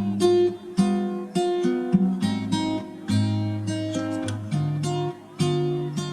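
Music played on acoustic guitar: a run of plucked notes and strummed chords, a new one about every half second.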